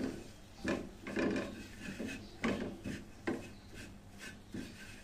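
Wooden spatula scraping and stirring flour and garlic around a metal frying pan, a run of uneven rasping strokes as the flour is roasted in a little oil for a white sauce.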